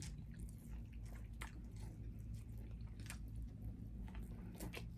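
A person chewing and biting corn on the cob close to the microphone, with scattered faint mouth clicks.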